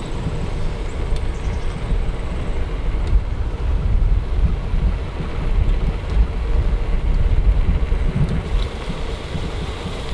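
Wind buffeting a Movo VX-R10 Pro on-camera microphone fitted with both its foam and furry windscreens, while riding a bicycle fast downhill: a loud, gusty low rumble with steady rushing noise above it.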